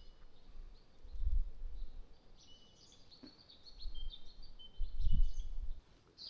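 Small birds singing and chirping in a forest, with short high notes and thin whistles scattered through. Three low rumbles, about a second in, around four seconds in and around five seconds in, are louder than the birds.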